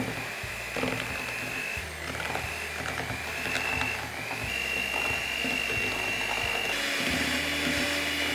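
Electric hand mixer running, its beaters whisking softened butter and brown sugar in a plastic bowl until light and fluffy. The motor's steady whine dips in pitch briefly a few times.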